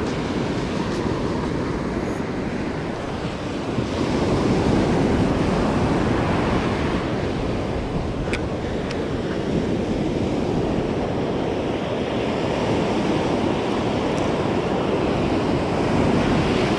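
Surf breaking and washing up a sandy beach in a steady rush that swells a little about four seconds in, with wind rumbling on the microphone.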